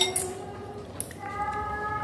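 Noodle eating with forks in ceramic bowls, with two short sharp clicks. Steady held tones sound in the background from about a second in.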